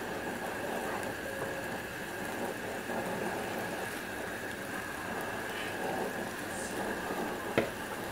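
A wooden spatula stirring thick curry sauce in an aluminium pot over a steady hiss, with one sharp knock near the end.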